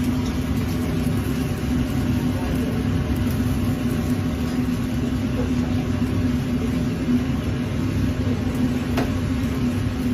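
Steady low rumble and constant drone of kitchen machinery running at a hot griddle station, with a faint click about nine seconds in.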